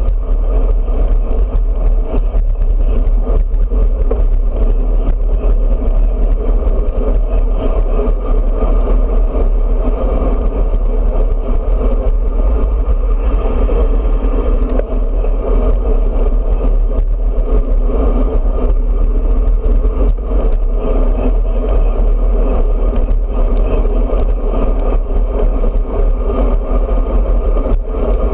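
Steady wind rush buffeting the microphone of a handlebar-mounted action camera on a road bike moving at speed, a continuous low rumble with road and tyre noise under it.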